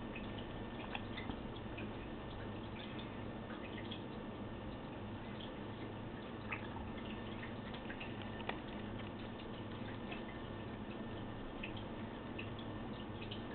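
A cat chewing corn off the cob: scattered faint wet clicks, a couple of them sharper, over a steady low hum.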